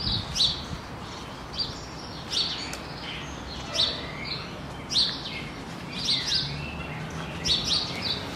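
Small birds chirping: short, high chirps repeated irregularly, often two in quick succession, about once a second.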